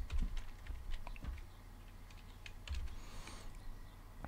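Faint computer keyboard typing, an IP address being keyed in: short runs of keystrokes with pauses between them.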